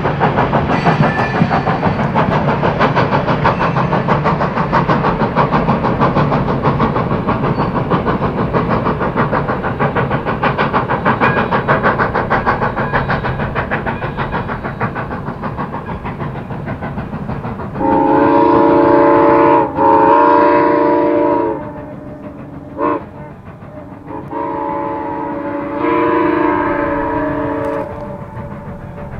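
McCloud River Railroad #18, a 2-6-2 steam locomotive, working upgrade with a rapid rhythmic exhaust beat that fades as it pulls away. It then sounds its chime steam whistle long, long, short, long, the grade-crossing signal for a road crossing.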